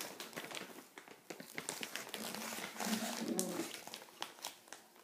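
Sticky frosting-and-powdered-sugar slime being kneaded and pulled apart with bare hands: a steady run of small wet clicks and smacks. A brief low hummed voice sounds in the middle.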